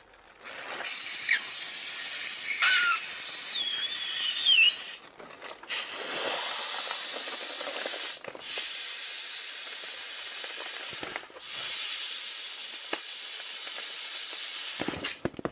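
Helium hissing from an inflator nozzle into a clear latex globe balloon filled with feathers, let through in four long bursts with short breaks between them, a gentle fill so the spinning feathers don't pop the balloon. A few squeaks sound around three to four seconds in.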